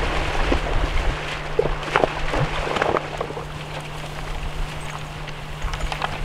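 Steady rush of a shallow river, with splashes and knocks in the first few seconds as a horse and a man wade through it.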